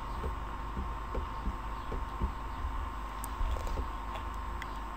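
Steady electrical hum and hiss of the recording setup, with a steady tone and a low rumble, and a few faint clicks scattered through.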